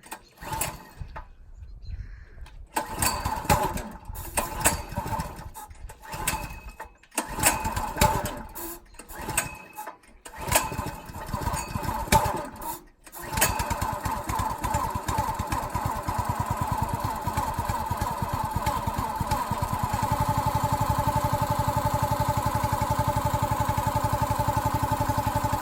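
Wood splitter's small gasoline engine being pull-started on choke: it sputters and surges unevenly, cutting out briefly a few times, then catches about thirteen seconds in and settles into a steady run.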